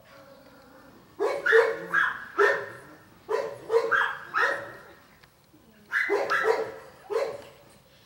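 Small terrier barking: sharp, high barks in three quick runs of three or four, starting about a second in.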